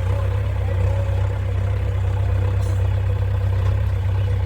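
JCB 3DX backhoe loader's diesel engine running steadily at an even pitch.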